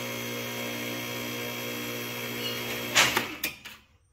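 Electric hydraulic pump motor of a car lift running with a steady hum while it raises the car. About three seconds in it cuts off with a sharp clunk and rattle.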